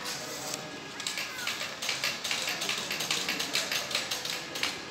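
Quick, irregular plastic clicking and crackling, like typing, as a translucent plastic sheet is handled over a children's magnetic drawing board. It starts about a second in and stops just before the end.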